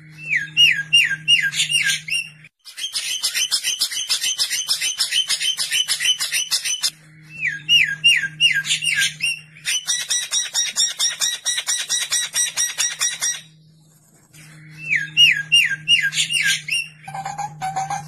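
Songbird song: bursts of about five quick looping whistled notes alternate with long, fast, harsh chattering rattles. The sequence comes round three times, with a brief pause about three quarters of the way through and lower repeated notes near the end.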